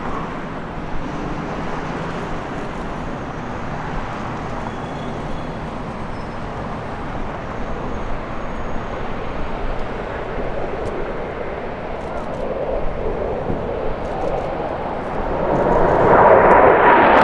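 A formation of military jets flying past: a steady distant jet-engine rumble that swells into a loud roar in the last couple of seconds as the jets approach.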